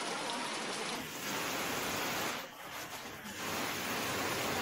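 Heavy rain falling on floodwater: an even hiss that dips briefly about two and a half seconds in.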